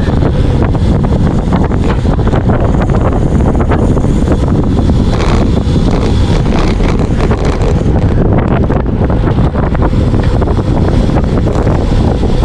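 Loud, steady wind buffeting the camera microphone of a road bike ridden at racing speed, with many small knocks and rattles running through it.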